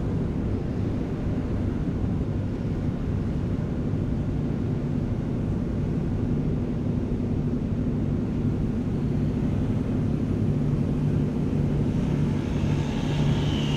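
Large ferry's engines and machinery running with a steady low drone, a hum that grows slightly stronger in the second half.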